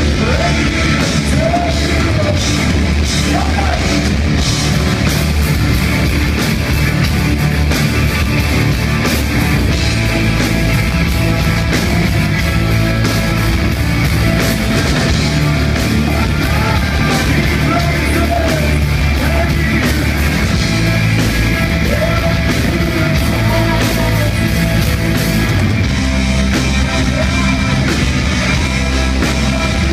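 Metal band playing live: distorted electric guitar and drums with cymbals under the singer's vocals, loud and dense without a break.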